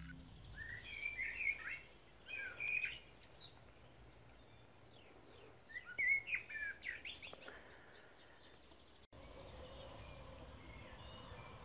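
Wild birds singing, with quick chirping and twittering phrases in two clusters over a faint steady outdoor background.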